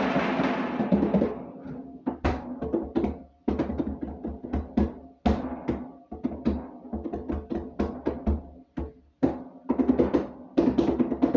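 A mini fridge being hit like a drum: quick strikes on its body, several a second, in a fast, uneven beat with a couple of brief pauses.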